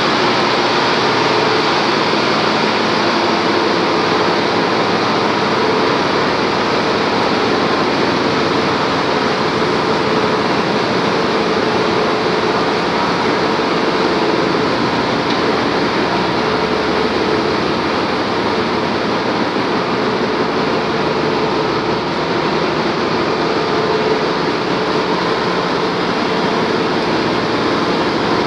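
Loud, steady din of a bulk carrier's engine-room machinery running, a constant drone with a couple of held hums and no let-up.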